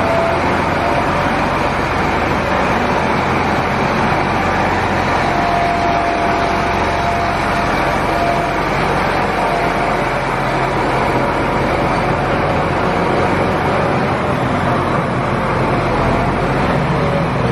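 Diesel engine of a John Deere 8R-series tractor running steadily.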